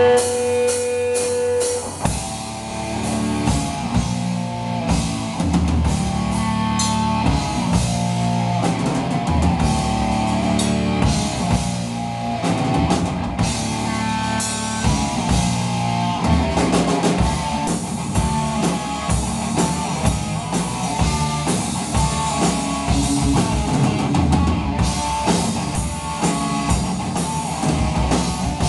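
Heavy metal band playing live: electric guitar, bass and a Pearl drum kit. A held note rings for the first two seconds or so, then the full band comes in with pounding drums.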